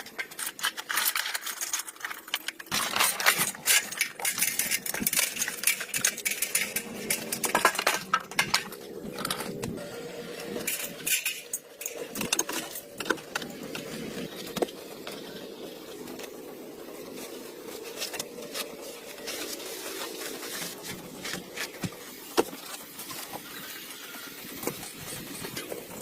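Clinking and clattering of metal parts and tools in workshop work on an old vehicle, dense for about the first twelve seconds, then easing into a steadier hum with occasional single clicks.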